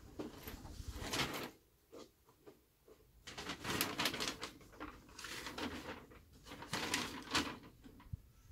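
Paper shooting target rustling and crinkling as it is handled and unfolded, in several spells of a second or so with short pauses between.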